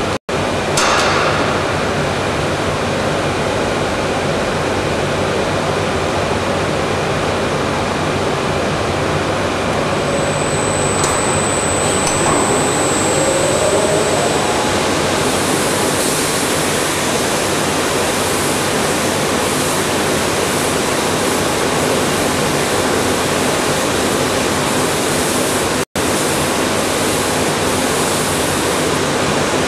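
Kuhlmeyer TBS weld-dressing sanding machine running: a steady, even rushing noise with a low motor hum beneath. It cuts out for an instant twice, just after the start and about 26 seconds in.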